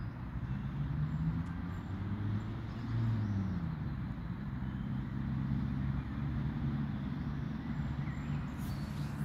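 A motor vehicle's engine running with a low hum, its pitch falling about three seconds in, over a steady haze of road traffic.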